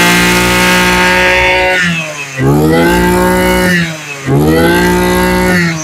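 Maruyama BIG M KC20NX 20cc brush cutter engine revving hard. It is held at high speed, drops back to idle twice, and each time revs straight up again. It runs smoothly, which the seller says sounds no different from a new engine.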